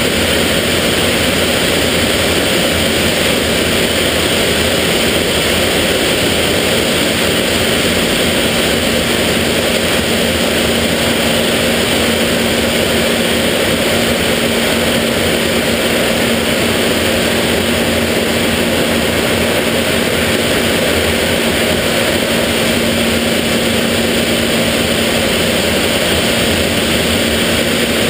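BAC Jet Provost's single Viper turbojet and the rush of air over the canopy, heard inside the cockpit in flight: a steady, loud, unchanging noise with a constant low hum under it.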